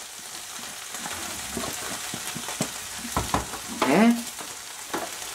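Peppers, onion and tuna sizzling in a frying pan, with a wooden spoon scraping and knocking as chopped hard-boiled egg is tipped in from a plastic tub. A brief voice-like sound comes just before four seconds in.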